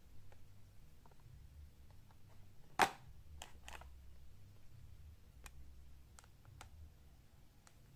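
Clear plastic blister pack on a carded diecast toy car being handled: one sharp click about three seconds in, followed by several fainter clicks and taps.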